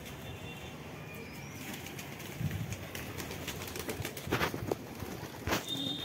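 Domestic pigeons in a loft flapping their wings in short spells now and then, the sharpest about four and a half and five and a half seconds in, with soft cooing.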